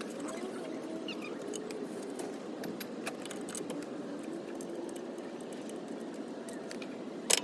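Light metallic clinks and ticks of hand tools on brake hardware over a steady background hum, with one sharp click near the end.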